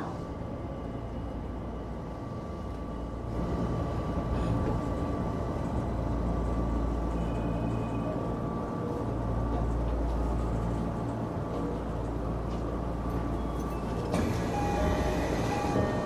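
Tokyo Metro Marunouchi Line train heard from inside the carriage: a steady low running rumble with a faint steady whine as it nears Yotsuya station. The sound grows a little louder about 3.5 s in and turns brighter and busier about 14 s in.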